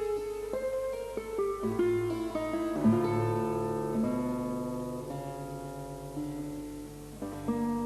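Background music: acoustic guitar playing plucked, picked notes.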